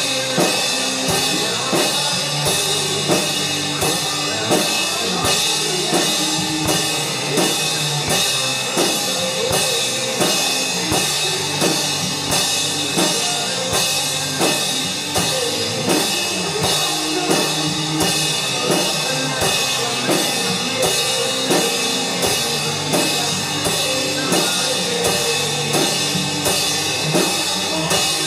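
Drum kit playing a steady rock beat with bass drum and snare, over a recorded band backing track without vocals.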